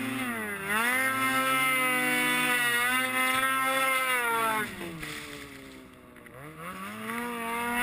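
Ski-Doo XM snowmobile's two-stroke engine revving hard while pulling through deep powder, dipping briefly early on, then backing off about four and a half seconds in to a low near six seconds before climbing again near the end.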